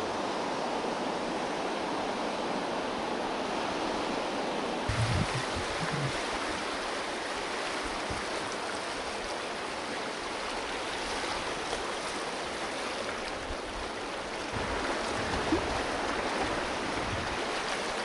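Steady rush of river water against and around an inflatable raft drifting downstream. It grows a little louder in the last few seconds as the water turns choppy, with a couple of low thumps about five seconds in.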